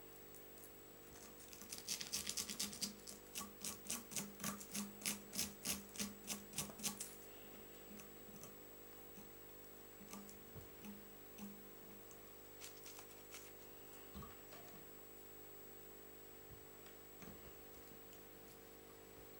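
Hands working a foam beetle fly in a fly-tying vise: a run of scratchy strokes, about three a second, for some five seconds, then a few scattered soft clicks.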